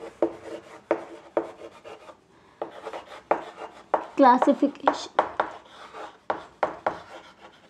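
Chalk writing on a chalkboard: a run of short taps and scrapes, about two a second, as each letter is stroked onto the board.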